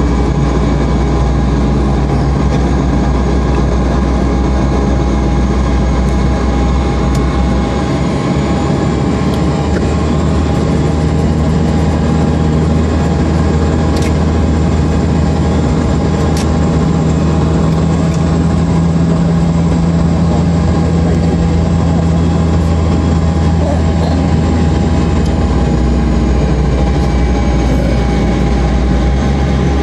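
Turboprop engines of a small twin-engine airplane running at taxi power, heard from inside the cabin: a loud, steady drone with propeller hum. The deep hum shifts about eight seconds in and shifts back near the end.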